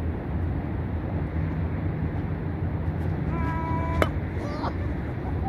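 Steady low engine hum, with a short high call about three and a half seconds in, a sharp click just after, and a second brief call.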